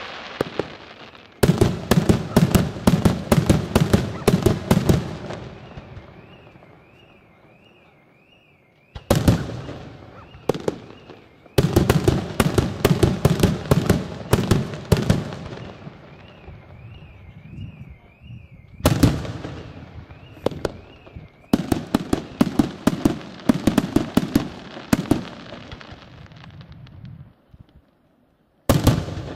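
Aerial fireworks shells bursting in rapid volleys, several sharp reports a second, in runs of a few seconds each, with the crackle dying away between runs.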